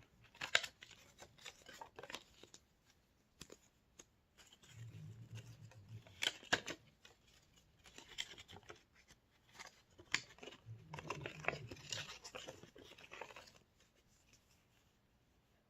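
Small thin-cardboard box being folded up by hand: faint rustling and creasing of card with scattered light clicks and taps, in several short clusters.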